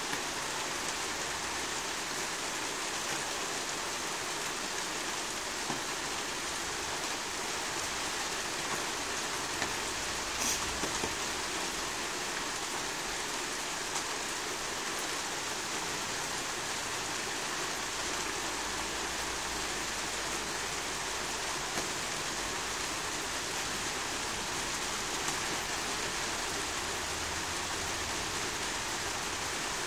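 Steady rain falling in a thunderstorm, an even hiss with a few sharp drip ticks close by, the clearest about ten seconds in.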